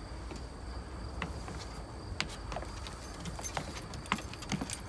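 Footsteps and scattered light clicks and knocks as people and a small dog step down a set of deck stairs, over a steady low rumble and a faint, steady high-pitched tone.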